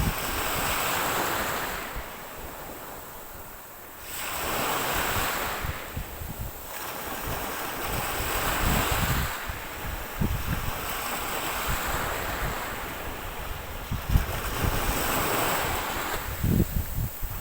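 Ocean waves breaking and washing ashore in repeated surges, rising and falling, with a lull about two seconds in before the next wave builds. Wind buffets the microphone in low rumbling gusts, most strongly near the end.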